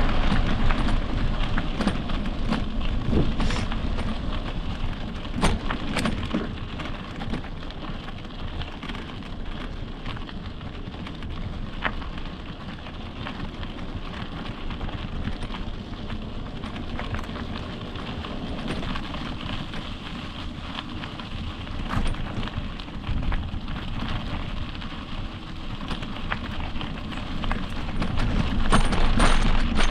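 Wind rumbling over the microphone and mountain-bike tyres rolling over a dirt trail, with scattered sharp clicks and rattles. It is louder at the start and again near the end.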